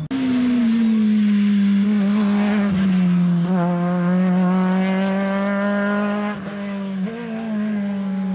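Rally car engine running hard at high, nearly steady revs, its pitch sagging slightly in the first second and dipping briefly about seven seconds in.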